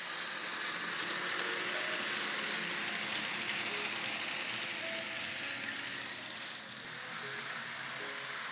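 N scale model trains running along the track: a steady hissing whir of the small wheels and motors.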